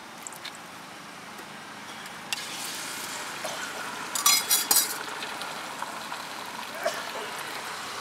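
Beaten egg poured onto an oiled hot pan sizzling from about two seconds in. Around the middle comes a quick run of metal clinks as a spoon knocks against the steel tumbler the egg is poured from.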